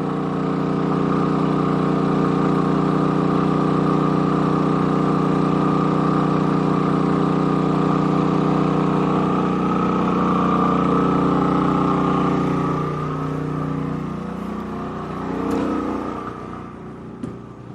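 Champion 4500 W inverter generator engine running steadily under heavy load, about 80% of its rating, with an even hum and no sign of straining. About two-thirds of the way through, its note drops and fades, with a brief swell shortly before the end.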